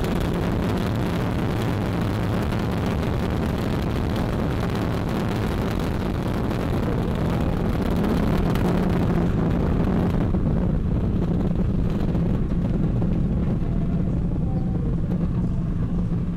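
Ariane 5 ES rocket in its climb, its two solid rocket boosters and Vulcain main engine firing at full thrust: a loud, steady rocket noise, heaviest in the low end. About ten seconds in, the highest hiss fades as the rocket climbs away.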